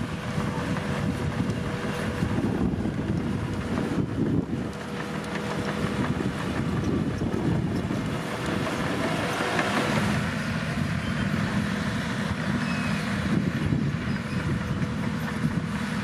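Diesel engine of a Caterpillar bulldozer running steadily under work, with a constant low rumble and a steady hum above it.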